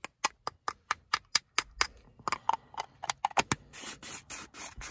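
Small handheld herb grinder being worked over cannabis: a quick run of sharp clicks from its parts, about four or five a second, then near the end rhythmic rasping as it is twisted to grind, about four strokes a second.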